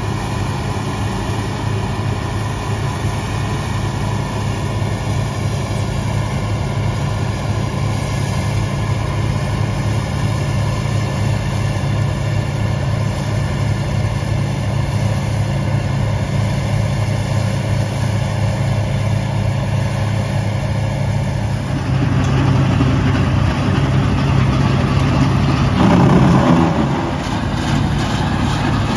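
Bizon Z056 Super combine harvester's SW-400 six-cylinder diesel running steadily under load while harvesting grain, with the threshing machinery working. About 22 s in the sound gets louder and fuller as the combine is heard close up, and it swells briefly near the end.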